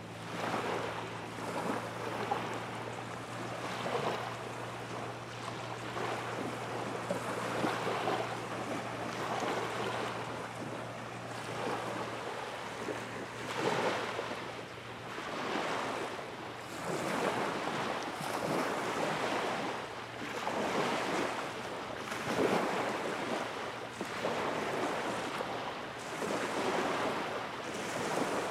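Small waves washing against the bay shore, swelling every couple of seconds, with wind on the microphone. A low steady hum underneath fades out about halfway through.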